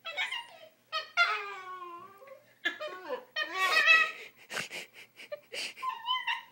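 A dog making an awful, drawn-out whining and yowling noise in a series of wavering, falling cries, the noise it makes when held to sit still. Short breathy bursts follow about five seconds in.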